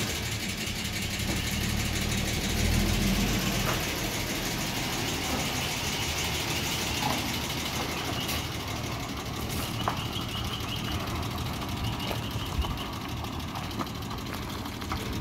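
Holden VL Commodore engine idling steadily, a little heavier for the first few seconds.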